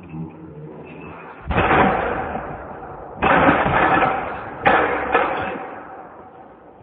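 A 240 lb barbell loaded with rubber bumper plates dropped from overhead onto the gym floor. It lands with a loud crash about a second and a half in, then clatters down again with further hits about three seconds in and twice more close together near five seconds, each ringing out briefly.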